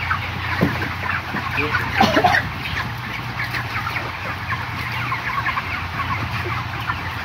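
Large flock of 35-day-old broiler chickens clucking and cheeping, many short calls overlapping, over a steady low hum.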